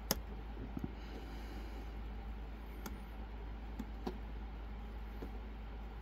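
A hook pick working the pins of a Silver Bullet lock under tension: a few scattered, faint clicks over a steady low hum.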